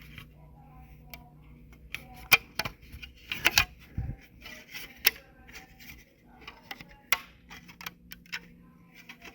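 Keystone inserts and parts of a floor-raceway data device being handled and adjusted: an irregular run of sharp plastic clicks and knocks, loudest two to four seconds in.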